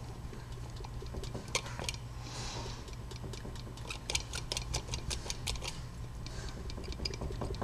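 Light metal clicks and taps, irregular and several a second, from a key blank in vise grips being wiggled back and forth and bumped up and down inside a Slaymaker wafer padlock, the wafers binding on the blank to leave impression marks. The clicks grow denser about three seconds in, over a low steady hum.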